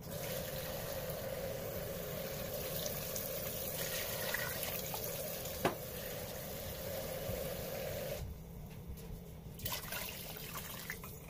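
Kitchen faucet running water steadily, then shut off about eight seconds in, with one brief knock partway through.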